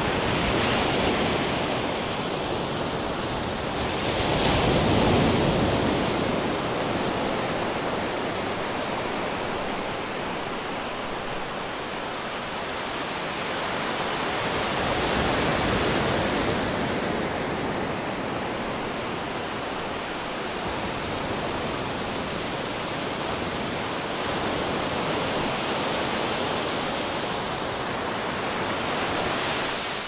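Sea waves washing in: a continuous rush of surf that rises and falls, swelling loudest about five seconds in and again around fifteen seconds.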